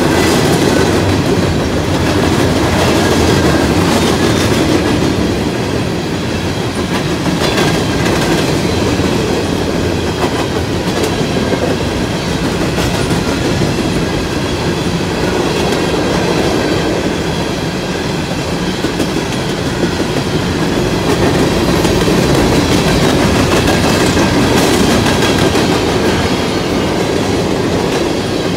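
Freight cars of a CSX coal train rolling past close by: a steady rumble with the clickety-clack of wheels over rail joints. A faint high ringing from the wheels runs underneath.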